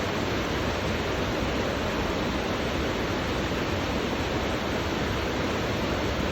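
River water trickling and flowing over stones, a steady, unbroken rush.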